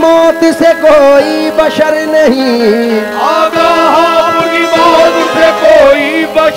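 Qawwali music: a harmonium holds steady notes under long, sliding wordless vocal lines.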